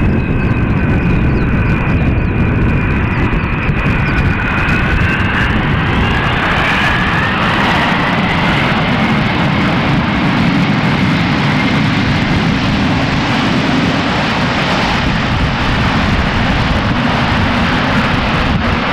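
McDonnell Douglas MD-11 cargo jet's engines whining over a heavy rumble during landing. The whine drifts down in pitch, then a new whine rises about six seconds in and holds steady.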